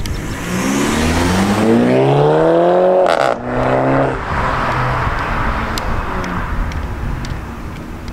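Audi A4 B8 with its muffler and resonators deleted, accelerating hard away with the exhaust revving up in pitch. There is a short break with a crack about three seconds in, then it pulls again briefly and fades as the car gets farther away.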